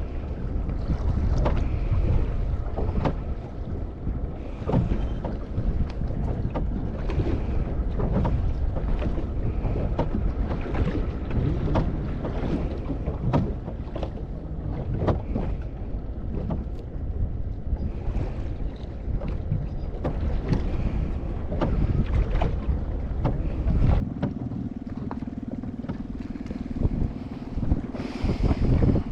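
Wind buffeting the microphone on a fishing boat at sea, with irregular knocks and slaps from the hull and gear. About 24 seconds in the wind rumble drops away and a steady low hum takes over.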